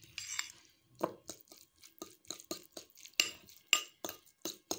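Metal fork clicking and scraping against a ceramic bowl while stirring mayonnaise into chopped egg, a quick even run of taps about three a second.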